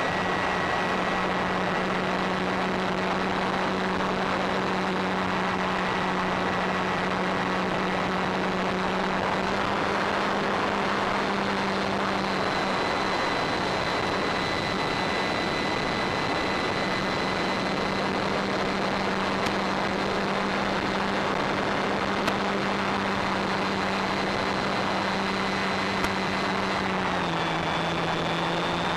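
Electric brushless motor and propeller of a Durafly Tundra RC plane humming steadily in flight, heard from the onboard camera over a constant rush of noise. Its pitch steps down slightly near the end.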